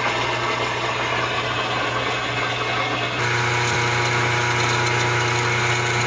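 Drive motor of an EASY 17 kg washing machine running with a steady electric hum, its inside freshly sanded clean of the rust that had left it sounding seized. About three seconds in the sound grows a little louder and a steady higher whine joins in.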